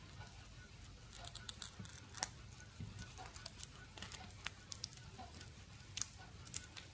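Faint scattered clicks and light ticking as fingers handle the small metal parts of a dismantled nixie tube: thin electrode wires, mesh anode and metal sheet. A few clicks stand out, about two, four and a half and six seconds in.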